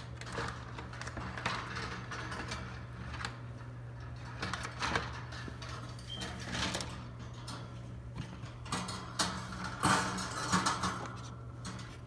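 Scattered rustles and light knocks from handling the parakeet's cardboard box and wire cage, over a steady low hum.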